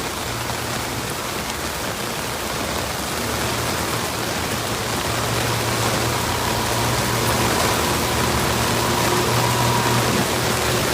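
Heavy rain pouring steadily and slowly getting louder, with a low steady hum underneath.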